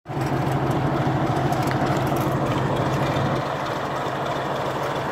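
Diesel engine of a YDM-4 metre-gauge locomotive running with a steady low drone.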